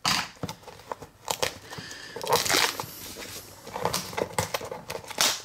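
Hands opening a Funko Mystery Minis cardboard blind box: irregular clicks, tearing and crinkling of the packaging.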